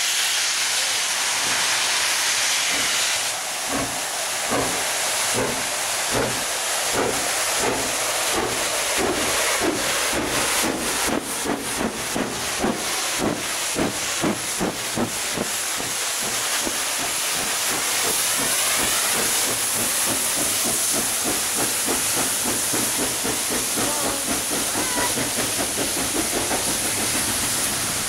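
Steam locomotive Princess Elizabeth, an LMS Princess Royal class Pacific, starting away: steam hissing, then exhaust beats from about three seconds in, slow at first and quickening until they run together into a continuous rush as the train gathers speed.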